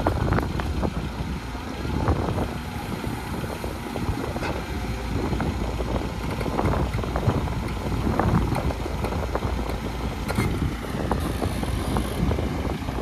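Heavy diesel machinery running steadily, with irregular knocks and clanks scattered through.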